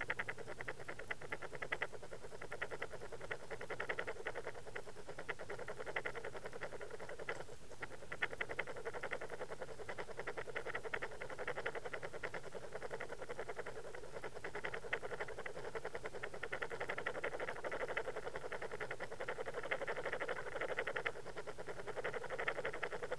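Dense, rapid clicking and rattling picked up underwater by a camera being towed on a trolling line with a crankbait. It keeps up steadily throughout, with a brief break about seven and a half seconds in.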